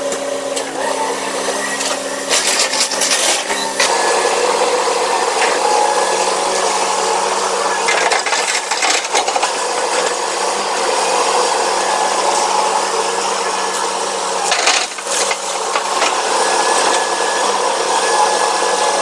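Excavator at work loading a tipper truck: its engine runs steadily under a rough scraping of rock and earth, with bursts of clattering a few seconds in, around eight seconds and again near fifteen seconds as stone tumbles.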